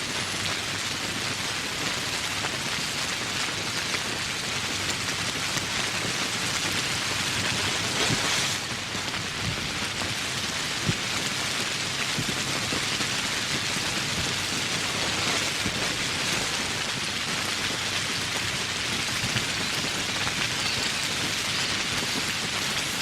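Steady rain falling, a dense, even patter of drops that swells briefly and dips about eight seconds in.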